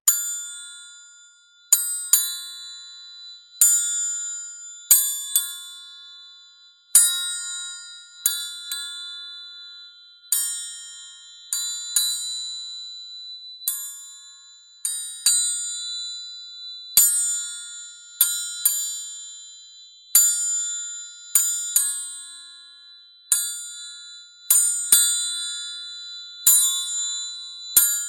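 Triangle struck again and again in an uneven rhythm, single hits and quick pairs every second or two, each leaving a bright, high ring that dies away before the next.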